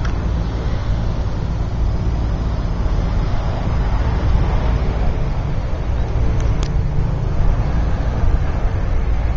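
Motor vehicle driving along runway pavement: a steady low engine drone with tyre and road noise.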